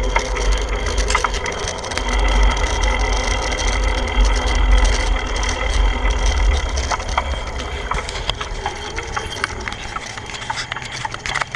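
Wind rumbling on the microphone while riding a bicycle, with scattered clicks and rattles. The rumble eases after about eight seconds.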